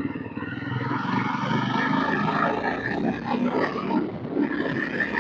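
Yezdi Roadster motorcycle's single-cylinder engine running under throttle on the move, getting louder over the first second and then holding steady.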